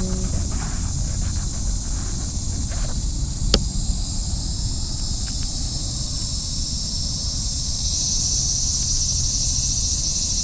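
Steady high-pitched outdoor insect chorus that grows louder about eight seconds in, over a low rumble. There is a single sharp click about three and a half seconds in.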